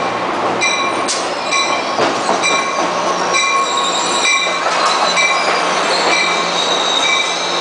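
Amtrak Pacific Surfliner train, led by cab car 6903, rolling into a station platform with its wheels squealing. A bell rings about once a second over the steady hum of the equipment.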